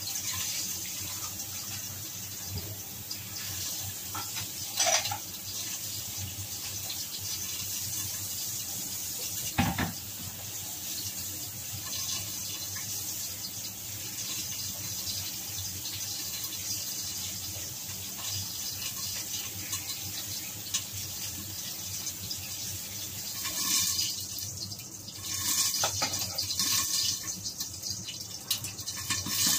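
Pork cheek frying in a covered wok, giving a steady sizzling hiss. A sharp knock comes about five seconds in and another about ten seconds in, and the sound becomes busier and more uneven near the end.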